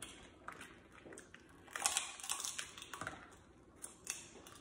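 Snow crab leg shells cracking and snapping as they are broken open and picked apart by hand, in short crackly bursts with sharp clicks, the loudest cluster about two seconds in.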